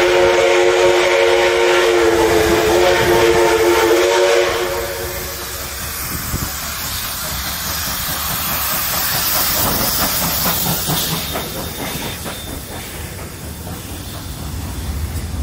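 Steam locomotive 5917, a NSW 59 class 2-8-2, blowing its steam whistle in one long blast of several pitches at once for about four and a half seconds, then a steady hiss of steam as the engine rolls past.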